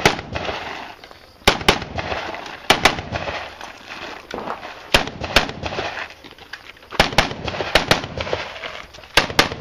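AR-15 rifle firing, about a dozen sharp shots, mostly in quick pairs a fraction of a second apart, with gaps of a second or two between pairs. Each shot leaves a short echo.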